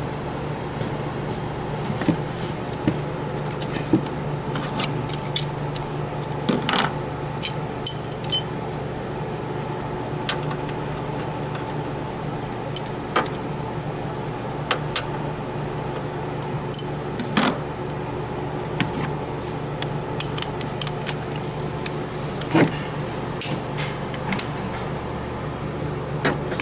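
Steady low mechanical hum with scattered sharp clicks and knocks, the loudest about seven, seventeen and twenty-two seconds in.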